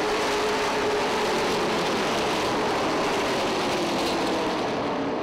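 A pack of pavement late model stock cars at speed on a green-flag restart. Their V8 engines blend into one steady drone with a tone that slowly falls in pitch.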